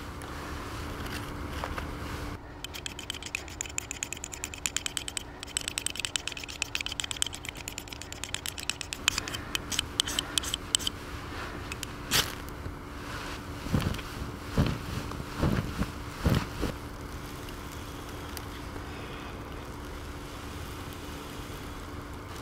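Small dry twigs being handled, snapped and stacked on newspaper: several seconds of fast light crackling and clicking, then a sharp snap and a few dull knocks.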